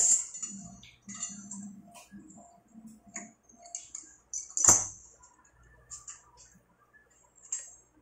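Small clicks and taps of handling metal tools and fittings, with two sharp knocks, one at the very start and one near the middle.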